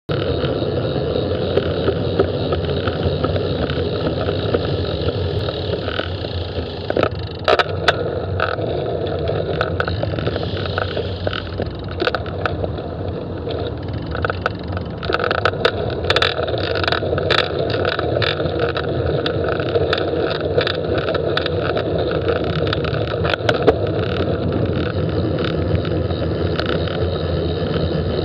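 Wind and road noise on a bicycle-mounted camera riding in traffic, with the steady hum of nearby vehicles. Scattered sharp clicks and knocks come in from about seven seconds on, bunched in the middle.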